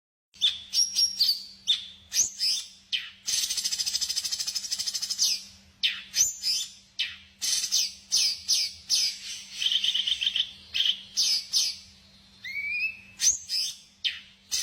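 Small songbirds chirping with quick high notes and sweeps, broken by rapid trills, a few seconds in and again about two thirds of the way through. This is a bird-lure recording meant to provoke other birds to answer.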